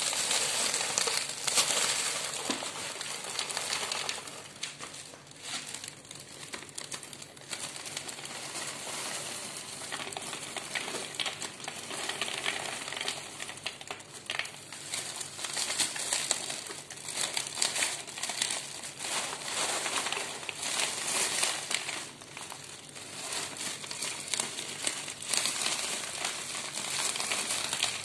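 Thin plastic carrier bag crinkling and rustling as it is handled and shaken to pour cat food out onto a foam tray, with many small crackles that come and go in loudness.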